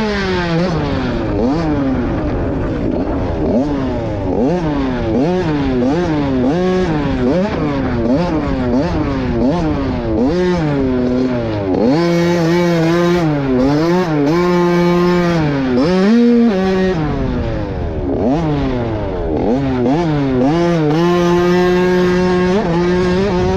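Motocross dirt bike engine revving up and down over and over, the pitch climbing and dropping about once a second as the throttle is worked around the track. Around the middle and again near the end the revs hold steady for a few seconds.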